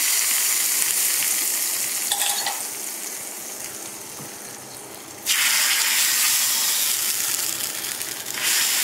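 Hot ghee and ghee-fried cashews sizzling as they hit the carrot kheer, the hiss fading over the first few seconds. About five seconds in, a second loud sizzle starts suddenly as the hot tempering ladle meets the kheer.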